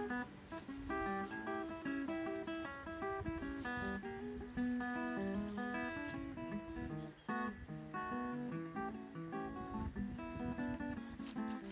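Background music: plucked and strummed acoustic guitar playing a steady tune.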